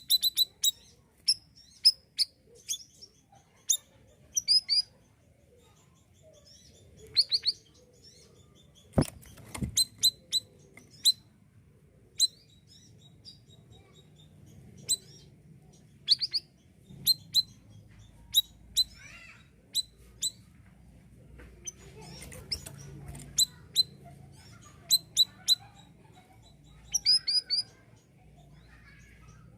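Male siri-siri bird singing: short, sharp, high-pitched chirps in quick clusters of two to four notes with pauses between. A single thump about nine seconds in.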